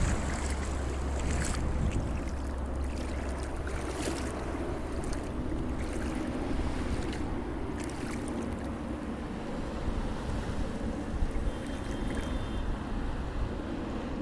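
Sea waves washing with wind buffeting the microphone, the wind rumble heaviest in the first couple of seconds.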